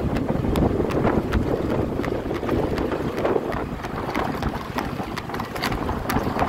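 Wind buffeting the microphone over a low rumble while riding along a rough dirt track, with scattered knocks and clicks throughout.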